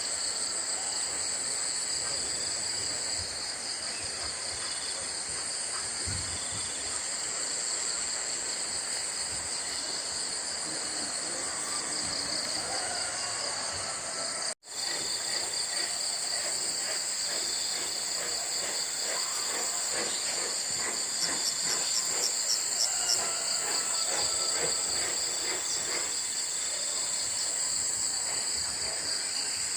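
Dense evening insect chorus of crickets: a steady, high-pitched shrill at two pitches. It drops out for an instant about halfway, and a little past the middle a rapid run of short, high chirps rises above it.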